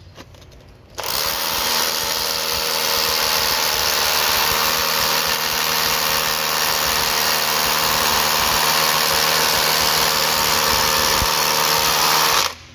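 Makita DHR182 18 V cordless rotary hammer, fitted with a HEPA dust-extraction attachment, drilling into a concrete block. It starts about a second in, runs steadily, and stops suddenly just before the end.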